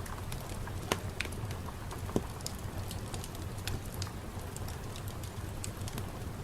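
Steady rain, with scattered sharp drips and ticks of drops landing over a low, even rumble.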